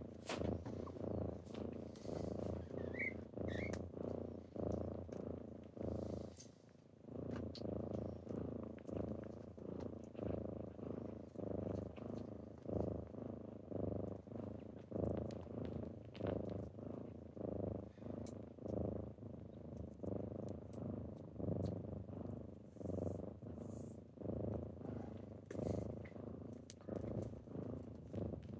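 Kitten purring steadily, the low rumble swelling and fading in a regular rhythm with each breath. Two brief faint high squeaks come about three seconds in.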